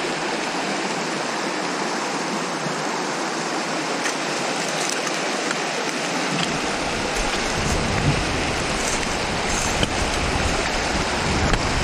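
Creek water rushing steadily over rocks. A low rumble joins about halfway through.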